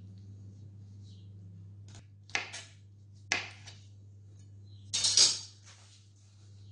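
Chef's knife slicing garlic cloves on a wooden cutting board: a few separate knocks of the blade on the board, then a longer, louder scrape about five seconds in as the slices are gathered up.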